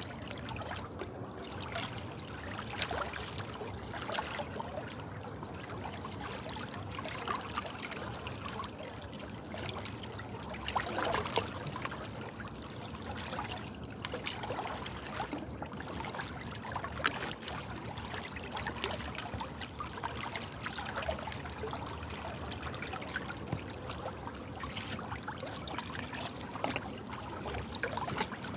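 Flowing water trickling and splashing steadily, with many small irregular splashes and gurgles.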